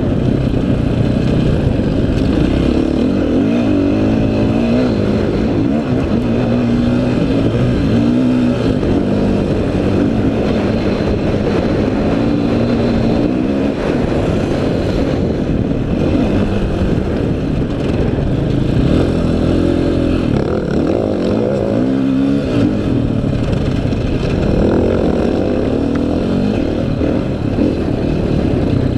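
Off-road dirt bike engine heard on board while riding a trail, revving up and falling back again and again as the rider works the throttle and gears, over steady rushing noise.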